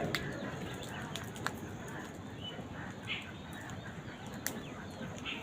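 A few short, high bird chirps over a steady background hubbub, with several sharp clicks.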